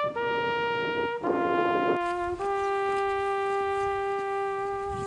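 Background music: a solo brass instrument playing a slow melody, one note at a time. The last note is held for about three seconds.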